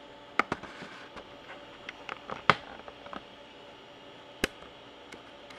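Irregular sharp clicks and taps of handling, about a dozen, the loudest around the middle and another strong one past the middle, over a faint steady hum.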